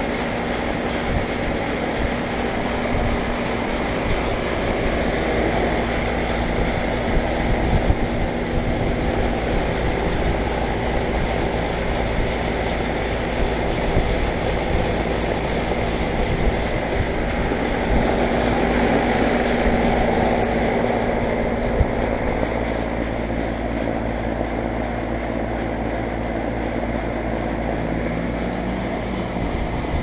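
2004 Payne teardrop 3.5-ton central air conditioner running steadily: the condenser fan's rush of air over a steady hum from its Copeland reciprocating compressor.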